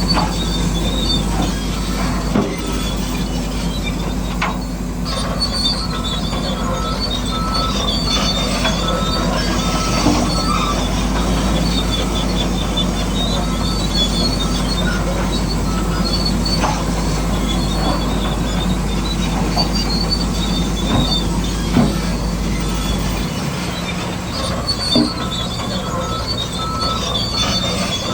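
Radio-controlled construction machines at work: small electric motors and gears whining steadily, with scattered clicks and knocks.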